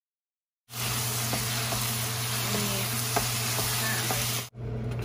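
Taro-stem curry with pork tail sizzling in a nonstick frying pan as it is stirred with a spatula, with a few light scrapes of the spatula. The sizzle starts abruptly after a short silence and cuts off shortly before the end, leaving a low steady hum.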